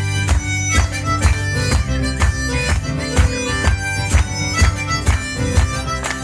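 Live one-man-band music: a fast Irish-style tune with a bright melody over a steady drum beat of about two strokes a second and a low sustained bass.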